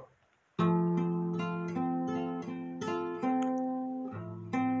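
Acoustic guitar playing a plucked intro, single notes ringing over held bass notes. It starts about half a second in, after a brief silence.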